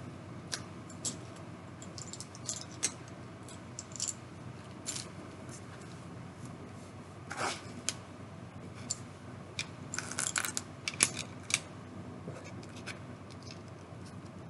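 Plastic Lego pieces being handled and pressed together: scattered light clicks and taps, a short scrape about halfway through, then a quick run of clicks.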